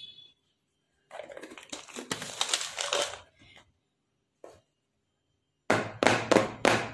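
A plastic dessert container being handled on a table: about two seconds of rustling noise, then several sharp taps near the end as the filled box is tapped down to settle the set kheer. A woman's voice speaks over the taps.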